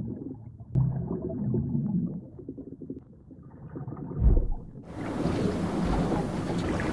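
Muffled low rumbling underwater, with one heavy low thump about four seconds in. About five seconds in it switches suddenly to the steady hiss of wind and open water at the sea surface.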